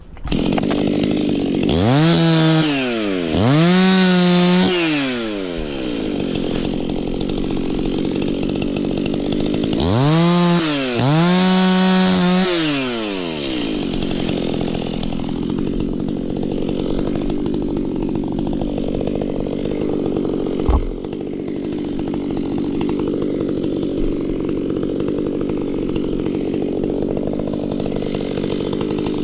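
Two-stroke chainsaw revved hard in two pairs of quick throttle bursts, the pitch rising and falling each time, then running steadily. There is a single sharp knock about two-thirds of the way through.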